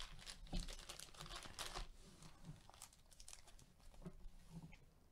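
Plastic foil wrappers of sealed trading-card and sticker packs crinkling and rustling as gloved hands shuffle through a stack of them. The crinkling is busiest in the first two seconds, then thinner and fainter.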